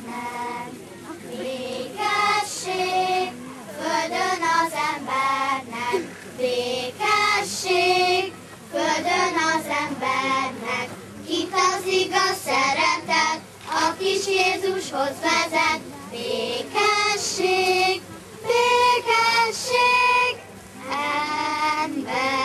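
Children singing a song together in phrases.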